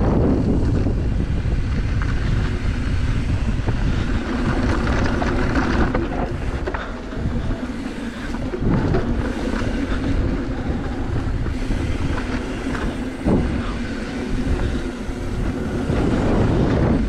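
Mountain bike rolling fast down a dirt trail: steady wind rush on the microphone with tyre noise and the bike rattling, plus a few sharp knocks over bumps.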